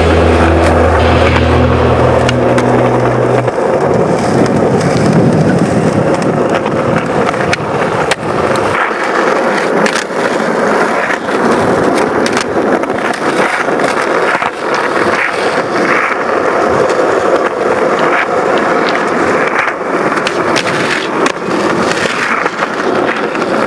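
Skateboard wheels rolling over smooth concrete, with several sharp clacks of the board from flat-ground tricks and landings. A music track's bass ends about three seconds in.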